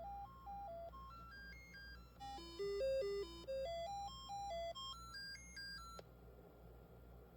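Commodore 64's SID sound chip playing the diagnostic cartridge's sound test: quick beeping notes stepping up and down in repeating runs, several voices at once, stopping suddenly about six seconds in. A faint low hum follows.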